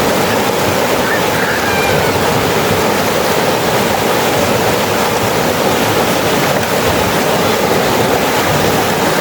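Flowing river water rushing steadily and loudly.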